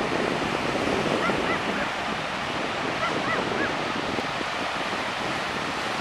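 Ocean surf breaking and washing up the beach in a steady rush, with wind buffeting the microphone. A few faint short calls sound about a second in and again around three seconds in.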